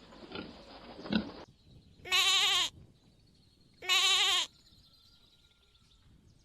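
Sheep bleating twice: two loud, wavering bleats, each about half a second long and nearly two seconds apart. A few low grunts come before them in the first second and a half.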